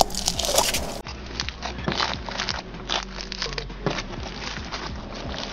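Pink floam slime, glue slime packed with foam beads, being squished and kneaded by hand: a string of small irregular crackles and clicks as the beads pop and the slime squelches.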